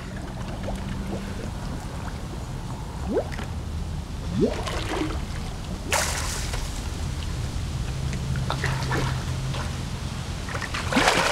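Swimming-pool water sloshing and trickling as a person moves through it, with a couple of short rising gurgles and a splash about six seconds in, and more splashing near the end.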